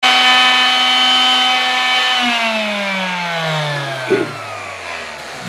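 Electric hand sander's motor running with a steady whine, then switched off about two seconds in and winding down, its pitch falling steadily.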